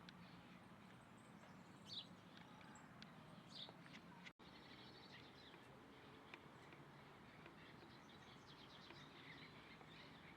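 Faint, scattered chirps of small birds over a steady background hiss, with a short trill later on. The sound drops out for an instant about four seconds in.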